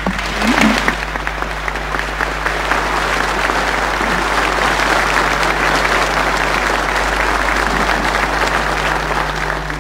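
Applause from a large hall audience, many hands clapping at once in a dense, steady patter that tails off near the end.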